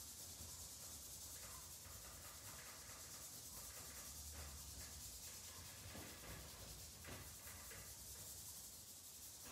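Hand rubbing soft pastel into paper, a faint continuous brushing with short strokes.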